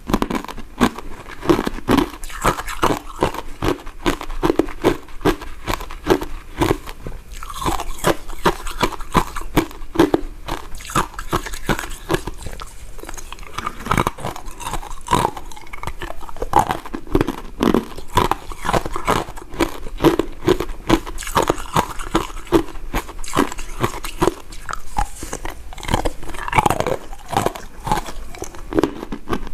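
A person biting and chewing soft, powder-coated mint sweets: a dense, continuous run of small mouth clicks.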